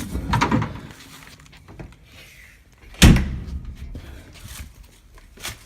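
A door slams shut with one loud bang about three seconds in, with handling and rustling noise before it and a smaller click near the end.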